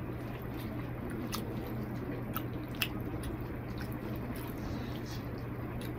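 Eating rice and egg curry by hand: wet, squishy sounds of fingers mixing rice and gravy on a plate, and chewing, with a few sharp clicks scattered through, over a steady low hum.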